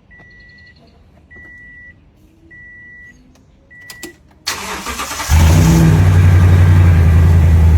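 A car's dashboard warning chime beeps four times, evenly about a second apart. Then the starter cranks for under a second, the engine catches and runs loudly and steadily.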